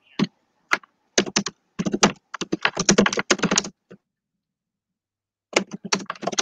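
Rapid, irregular clacking of keys, like typing on a computer keyboard, in two runs with a silent gap of about two seconds between them.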